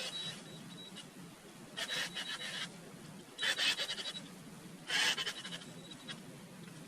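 Repeated rasping strokes of hand work on a part, like scrubbing, scraping or filing, about one stroke every second and a half, with a faint low hum underneath.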